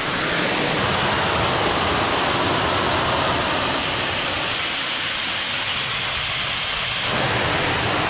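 Steady rushing hiss of a waterfall curtain pouring down onto rock, heard from right behind and beneath the falling water.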